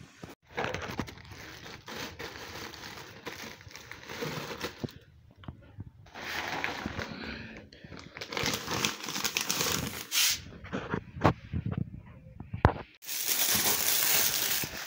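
Plastic packaging crinkling and rustling as wrapped packs of toilet paper and household products are handled and pushed into a cupboard, with a few sharp knocks. The loudest rustling comes near the end.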